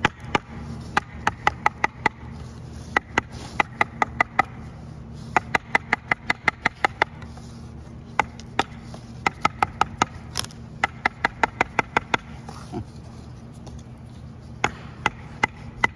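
Sharp metallic clicks and taps in quick runs of several a second, each ringing briefly: a screwdriver working against the steel drum and snap ring of a Massey Ferguson MF285 tractor's PTO clutch pack to pry the snap ring out. A low steady hum runs underneath.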